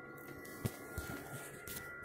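Faint steady high-pitched whine from the 3D printer, with a couple of soft clicks about halfway through the first second. No feeding sound from the extruder motor, which is not turning: it is jammed.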